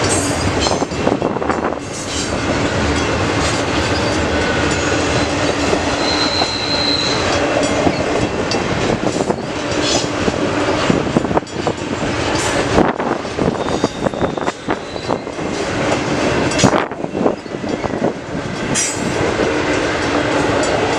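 CN intermodal freight train's double-stack container well cars rolling past: a steady rumble of steel wheels on rail with repeated clicks, and a brief high wheel squeal about six seconds in.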